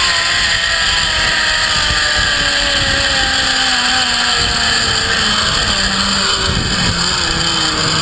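Zip-line trolley pulleys running along the steel cable: a whine whose pitch falls steadily as the rider slows on the approach to the landing platform. A dense rush of wind noise from the ride's speed sits under it.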